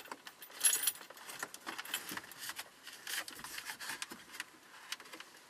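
Scattered small clicks and rattles of plastic as a hand works behind the loosened centre dash panel of a Honda Element, feeling for the hazard-light switch connector.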